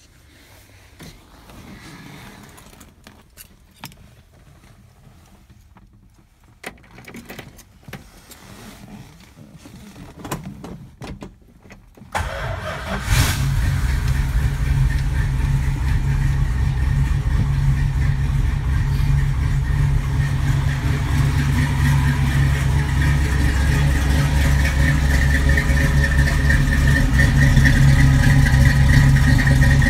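A Plymouth Belvedere's 440 big-block V8 starting: a brief crank about twelve seconds in, then it catches and settles into a steady idle. Before that there are only faint clicks and handling knocks.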